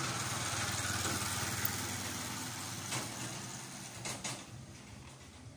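A vehicle engine runs steadily at a low hum, fading off over the last couple of seconds, with a couple of faint knocks in between.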